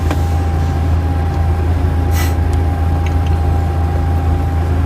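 Steady low droning hum with a thin steady tone above it and one faint tick about two seconds in; no burp or speech.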